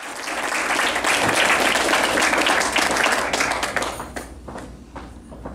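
Audience applauding, dying away about four seconds in to a few separate claps.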